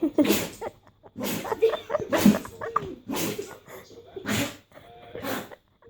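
A dog sneezing over and over, about six sharp sneezes roughly a second apart.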